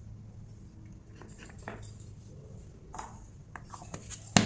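Hands handling a plastic LED bulb and its fittings: scattered small clicks and taps over a faint steady low hum, then one sharp click near the end.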